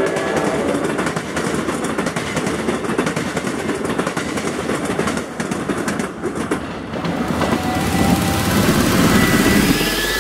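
Amtrak passenger train's coaches running past close by, wheels clattering over the rail joints and switches with a steady rushing noise. The last car clears by about halfway, and the rushing goes on as the train pulls away.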